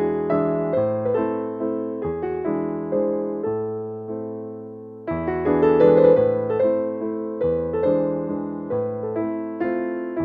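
Background piano music: notes and chords struck and left to fade, the chord changing every second or two, with a fresh loud chord about five seconds in.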